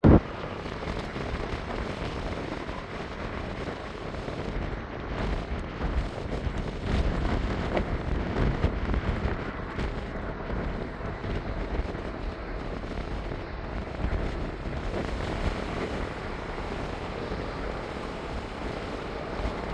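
Wind gusting on the microphone over a steady rumble, a little louder around the middle, with a sharp knock at the very start.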